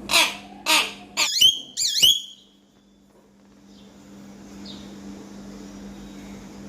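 Pet hill myna calling: two harsh screeches, then two warbling whistles that wave up and down and end on a clear whistled note, all in the first couple of seconds.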